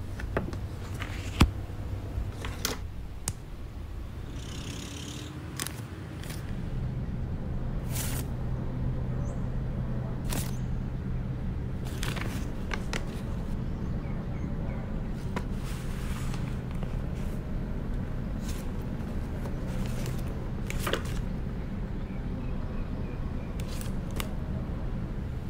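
Paper rustling and scraping as a photo print and an envelope are handled, with scattered sharp clicks, the loudest about a second in. A steady low hum sits underneath from about six seconds in.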